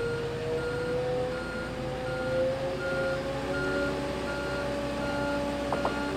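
Boatyard travel lift's warning beeper sounding evenly, about one short high beep every three-quarters of a second, over the steady drone of the lift's engine as it hauls the boat out.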